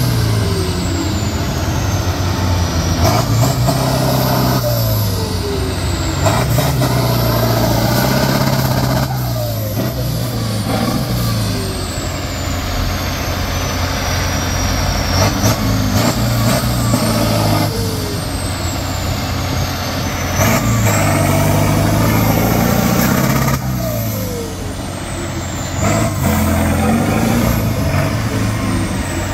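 Truck-trial prototype's diesel engine revving hard again and again under load, its pitch surging up and falling back every few seconds. A high whistle sweeps up and down over it.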